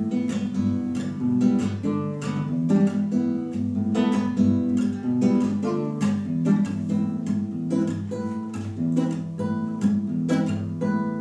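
Nylon-string classical guitar played solo: a closing instrumental passage of plucked chords and notes at the end of the song.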